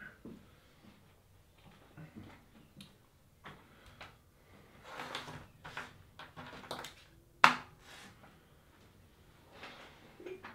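Person moving about a small room and handling things on a desk: scattered shuffles, rustles and light knocks, with one sharp click about seven seconds in.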